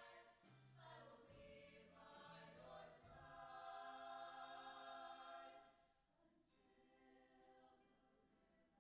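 Mixed show choir singing sustained chords in several parts, dropping to a much softer passage about six seconds in.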